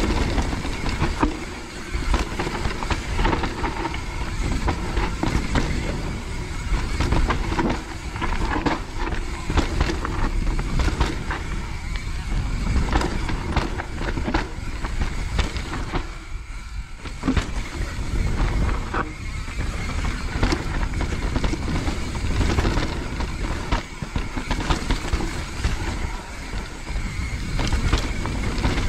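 A mountain bike descends a wet, rooty trail. There is a steady rumble of tyres and wind noise, broken by frequent sharp knocks and rattles as the bike hits roots and small drops, with a brief lull a little past halfway.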